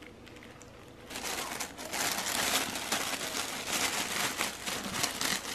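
Tissue paper crinkling and rustling as it is unfolded by hand, starting about a second in.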